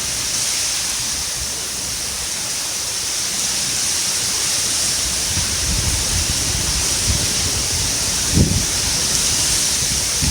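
Rain falling steadily in a dense hiss, with low rumbles of wind on the microphone in the second half and a sharper gust about eight seconds in.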